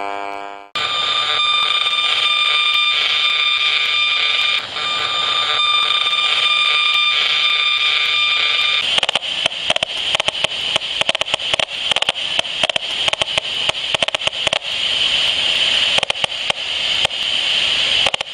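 Electronic static: a loud hiss with several steady high tones held over it, which about halfway through drops the tones and turns to a dense, rapid crackle.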